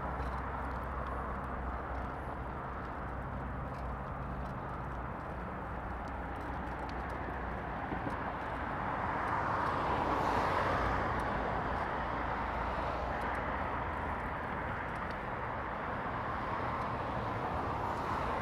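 Steady road traffic noise with a low rumble, swelling as a vehicle passes about ten seconds in.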